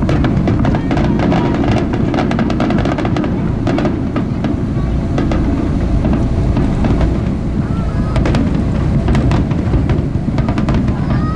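Fireworks bursting and crackling in quick, dense cracks and pops, over a steady low rumble.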